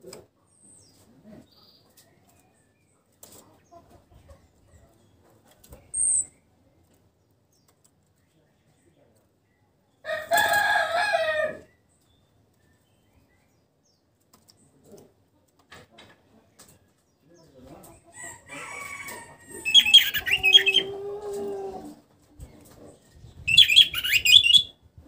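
Mostly quiet, with a rooster crowing once about ten seconds in. Later come clucking chicken calls and short, high chirping bursts from a caged orange-headed thrush (anis merah), the loudest near the end.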